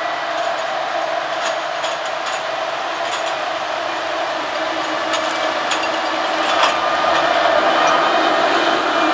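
Logset 5F GT forwarder driving slowly up to and past at close range: a steady diesel engine drone with frequent metallic clanks and rattles of tracks and frame, getting louder as it nears and loudest about two-thirds of the way through.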